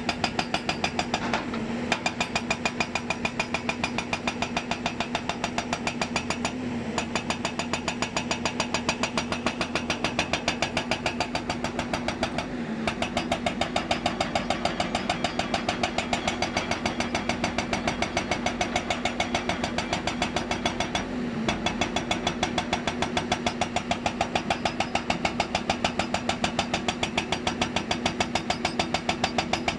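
Hyundai 290 excavator's diesel engine running steadily, with a regular, even pulsing.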